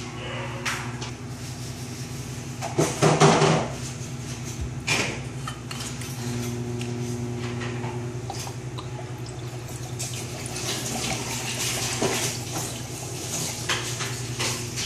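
Glassware and ice clinking and knocking on a countertop, over a steady low hum. The loudest, a short clatter, comes about three seconds in, with a few single clinks later.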